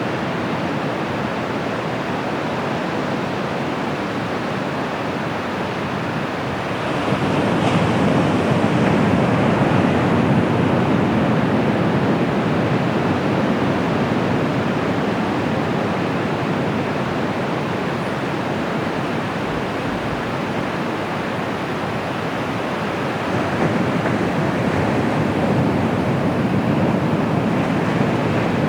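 Ocean surf washing onto a beach in a steady rush, swelling louder about seven seconds in and again near the end as bigger waves break.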